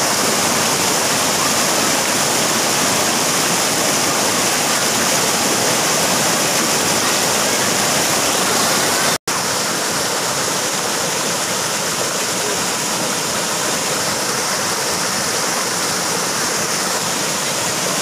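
Low rocky waterfall and its rapids: white water rushing steadily over rocks, a loud, even wash of sound. About halfway through it cuts out for an instant and comes back a little quieter, as water tumbling over rocks and logs in the stream below.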